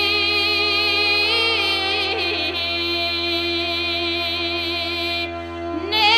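Background music with a sustained drone under a wavering, sliding melody line, which breaks off briefly near the end and returns louder.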